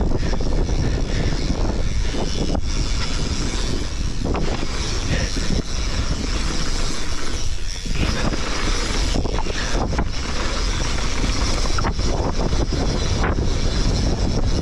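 Mountain bike riding fast down a dirt and stony trail: steady rushing wind noise on the microphone and tyre roll over the ground, with sharp rattles and clatters from the bike over bumps every few seconds.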